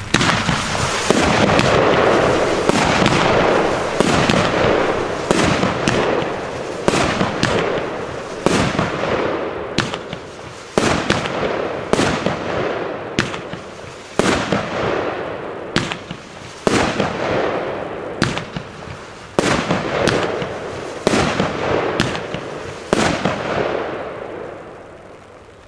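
Weco 'Stormy Flash' 13-shot whirl battery (Wirbel-Batterie) firing shot after shot, about one every second or two. Each shot is a sharp report followed by a fading hiss, and the sequence tails off near the end.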